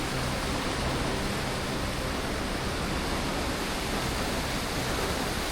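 A waterfall pouring: a steady, even rush of falling water.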